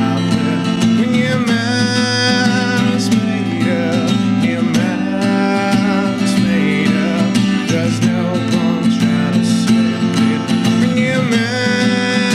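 A man singing while strumming chords on a Crafter cutaway acoustic guitar.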